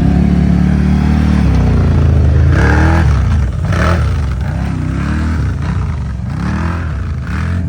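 An off-road vehicle's engine runs hard, then is revved up and down several times, with short bursts of clatter in between.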